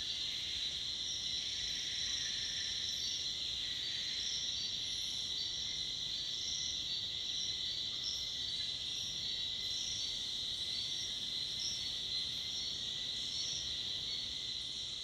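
Tropical forest insect chorus at dusk: a steady high-pitched drone of cicadas and crickets, with a higher chirp pulsing about once or twice a second.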